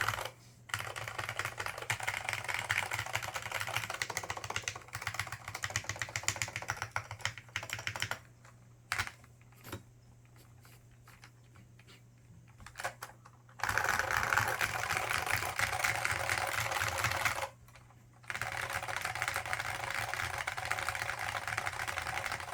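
Dell AT101 keyboard with lightly lubed Alps SKCM Black switches and doubleshot keycaps being typed on: fast continuous typing, thinning to a few scattered single keystrokes around the middle, then fast typing again broken by a short pause near the end.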